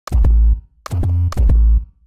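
Serum synth bass patch played as three short notes, each starting with a sharp click transient from a sample layered in the noise oscillator, over a deep bass tone.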